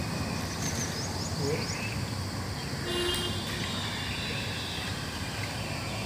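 Steady outdoor background din with a horn tooting once for about a second, around three seconds in.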